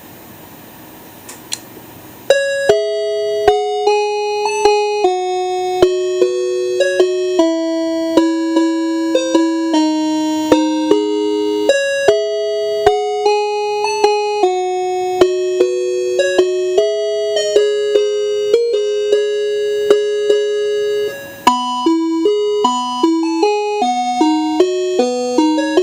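After a single click, a Patlite EMB-100 electronic melody horn switches on and plays a loud electronic tune of clear, stepped notes as a wake-up alarm. About 21 seconds in it breaks off for a moment, and a different, faster tune starts.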